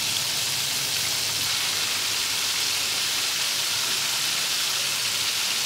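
Chicken strips deep-frying in a pot of hot oil on a propane turkey fryer: a steady, even sizzle and bubbling of the oil.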